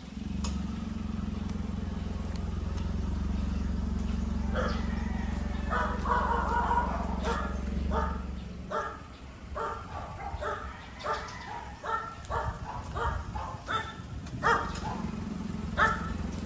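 A dog barking repeatedly in quick, irregular barks from about four seconds in until near the end. Under it runs a low steady hum that drops out about halfway through and comes back near the end.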